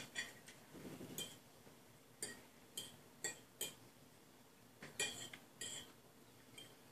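Metal forks clinking and scraping on ceramic plates: about ten short, faint clinks, irregularly spaced.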